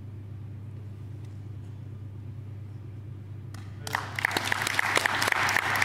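A steady low hum, then applause breaks out suddenly about four seconds in, at the bow that closes the kata, and is the loudest sound to the end.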